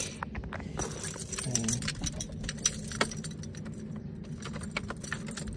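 Keys jangling, a rapid run of small metallic clicks and clinks, over a faint steady low hum.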